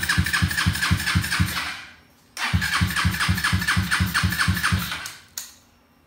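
Custom street-bike motorcycle engine with twin open intakes firing in a slow, even pulse of about seven beats a second for two seconds, cutting out, then catching again half a second later and running for nearly three more seconds before cutting out: an engine that will not yet keep running and that the owner says still needs tuning.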